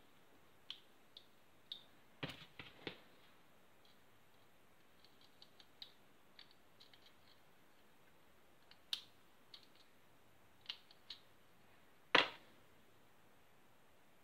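Small plastic parts being handled: scattered light clicks and taps from an orange plastic trigger-unit housing, its trigger and safety lever. There is a short cluster of louder knocks about two to three seconds in and one louder knock near the end.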